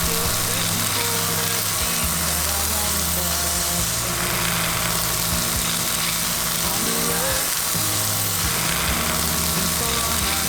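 Chamois loin frying in a hot pan, a steady sizzle.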